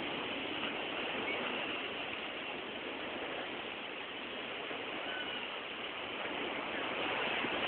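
Ocean water and surf washing below, a steady rushing hiss with no single wave breaking out from it.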